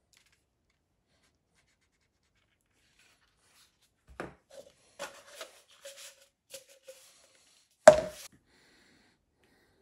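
Silent for about four seconds, then a run of light knocks and short squeaks of a leather sleeve rubbing against a plastic cup as the cup is worked into it. Near the end a single sharp knock, the loudest sound, as the cup is set down on a cutting mat.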